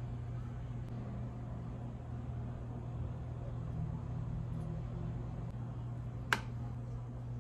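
A steady low background hum with faint handling noise, and one sharp click about six seconds in.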